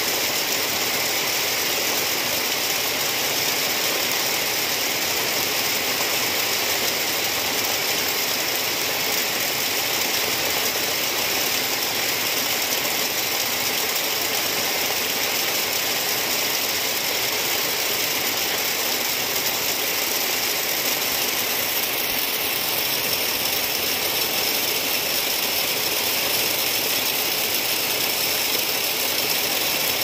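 Heavy rain falling steadily on leafy trees: a dense, even hiss of countless drops.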